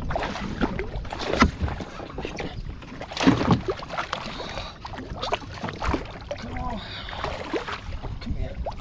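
Irregular knocks and bumps on a kayak on the water, a few louder ones a couple of seconds apart, over a steady hiss.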